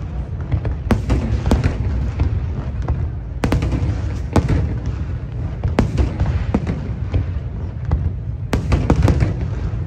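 Aerial fireworks bursting in an irregular series of sharp bangs, with a quick cluster of bangs near the end, over a steady low rumble.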